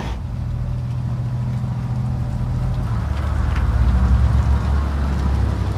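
Armoured tank engine running with a low, steady rumble that grows louder about halfway through.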